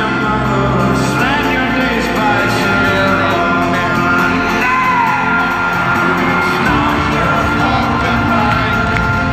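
Folk-rock band playing live in an arena, with acoustic guitars, upright bass and lead vocals, echoing in the large hall. Shouts and whoops from the crowd come through over the music.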